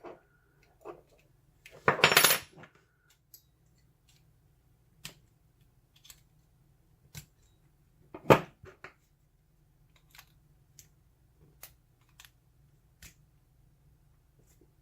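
Small metal clicks and clinks of a euro cylinder lock and its tools being handled. There is a louder metallic clatter about two seconds in and a sharp clink about eight seconds in.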